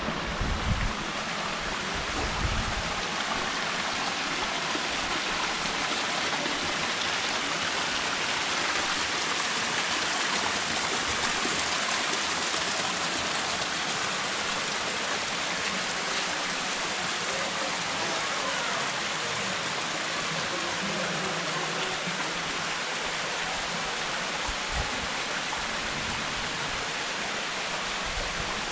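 Waterfall: falling water splashing with a steady rush, and a couple of low thumps in the first few seconds.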